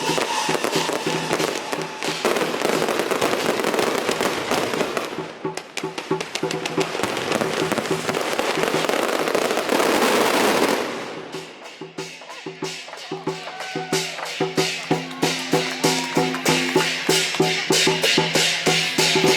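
A string of firecrackers crackling densely, then stopping about eleven seconds in. Procession music takes over: drums and percussion beating a steady rhythm under held instrument notes.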